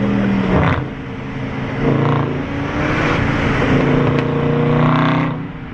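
Car engine revved in about three short blips, the exhaust note rising and falling between them.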